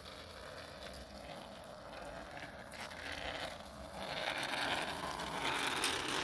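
Child's bicycle with training wheels rolling on asphalt: a steady rolling, gritty noise from the tyres and small training wheels, growing louder in the second half as the bike comes close.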